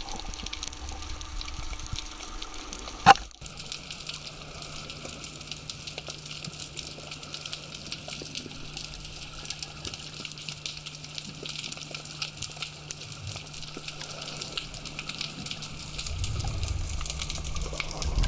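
Underwater speargun firing: a single sharp crack about three seconds in, the shot at a white seabream. Around it, underwater noise with a fine steady crackle and hiss, growing into a louder rush of water near the end.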